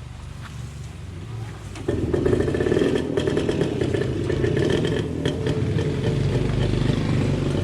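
Petrol brush cutter engine running, idling low at first and then throttled up sharply about two seconds in, holding a loud, steady high speed.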